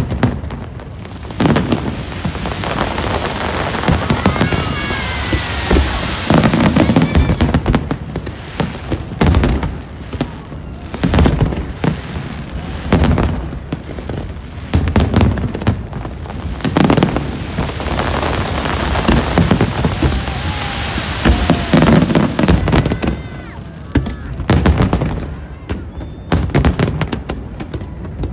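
Aerial fireworks display: shells bursting in loud bangs and booms at irregular intervals, one after another, over a steady crackle.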